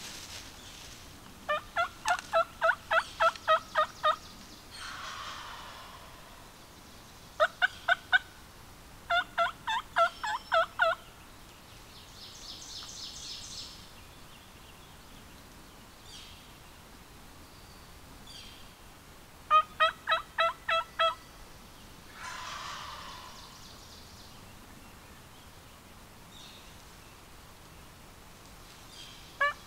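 Wild turkey calling: five loud runs of yelps, each a string of evenly spaced notes about three or four a second, answered twice by fainter, more distant gobbles that fall in pitch.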